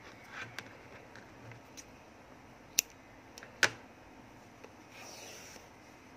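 Small handling sounds from crochet work: scattered faint clicks and two sharp clicks a little under a second apart near the middle, with a soft rustle near the end.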